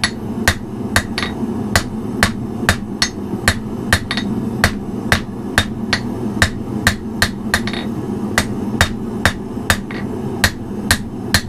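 A hand hammer striking red-hot steel on an anvil, with sharp, even blows at about three a second. A steady low rushing noise runs underneath.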